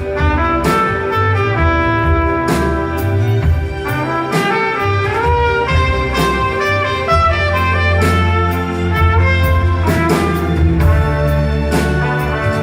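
Live band playing an instrumental break: a lead melody over a steady bass line, with regular drum strokes.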